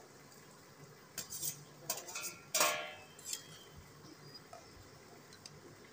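A steel plate and spatula knocking against a steel kadhai as raw banana slices are tipped into the gravy and stirred: a few short knocks, with one louder ringing metallic clink about two and a half seconds in.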